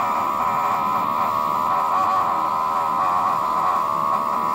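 Linksmart LSM09 electric water-jug dispenser pump running with a steady whine from its small motor, which turns freely now that its jammed shaft has been freed.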